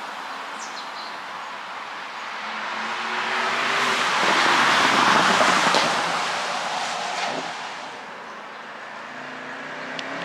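A 2017 Porsche Panamera Turbo driving past: the noise swells to a peak about five seconds in, then fades away, with a few faint sharp cracks along the way.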